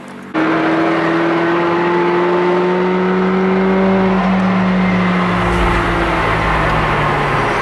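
Car engine and tyre/road noise heard from inside the cabin while driving on a highway. The engine note rises slowly over the first few seconds as the car gathers speed, then holds steady. The sound starts abruptly just after the beginning.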